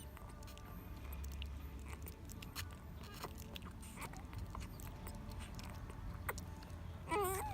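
Soft scattered clicks and crunches, then near the end a puppy whining in a high, wavering cry.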